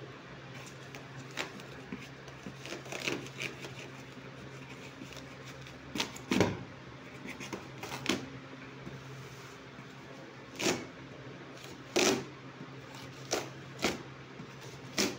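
Woven plastic courier sack wrapped in clear tape being cut and ripped open with a knife: about ten short, irregular rips and crinkles, loudest about six and twelve seconds in. A low steady hum runs underneath.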